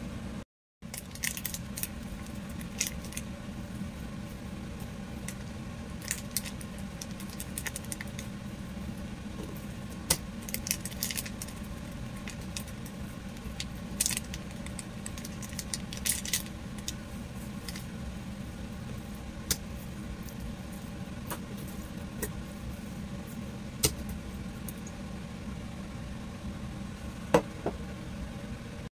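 A small plastic spice packet crinkling and rattling as seasoning powder is shaken out of it over pork chops in a stainless steel bowl, with scattered short clicks spread through, over a steady low hum.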